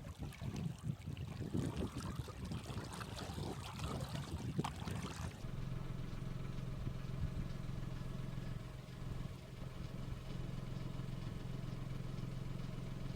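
Gusty outdoor noise of wind and water for about five seconds. It then switches abruptly to a steady low engine hum, like a car running.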